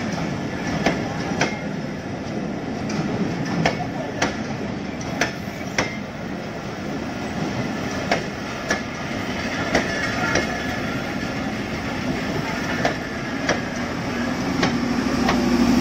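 Passenger coaches of a broad-gauge train rolling past at low speed: a steady rumble with paired clicks, about half a second apart, each time a bogie's wheels cross a rail joint.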